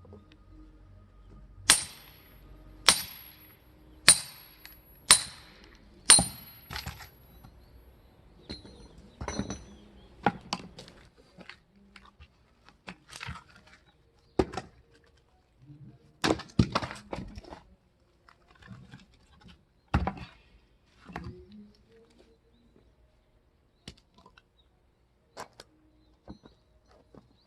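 Five hard, ringing blows about a second apart as firewood is split, followed by lighter scattered knocks and clatter of wood pieces being moved.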